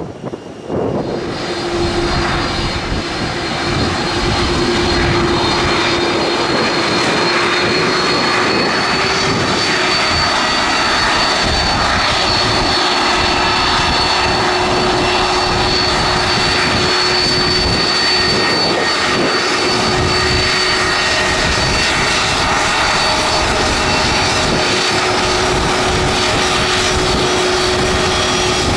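Fixed-wing aircraft engines running loud and steady, with a few steady whining tones over a broad rush of noise.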